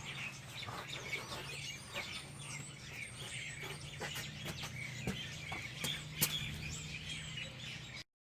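Small birds chirping and calling continuously over a steady low hum, with a few sharp clicks, the loudest about six seconds in.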